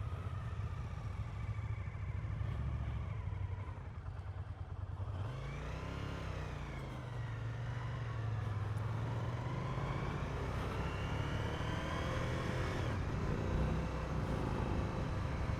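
Motorcycle engine running on the road. Its pitch rises and falls about five seconds in, then climbs steadily for several seconds under acceleration before easing off near the end.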